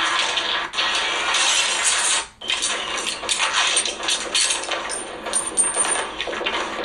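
Action-film soundtrack playing through a phone's small speaker: a dense run of clattering and crashing effects with no bass, dropping out briefly a little over two seconds in.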